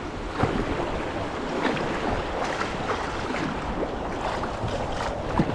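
Water splashing and sloshing irregularly, with wind buffeting the microphone.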